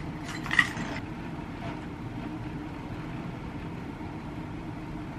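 Steady low mechanical hum, with a brief higher sound about half a second in.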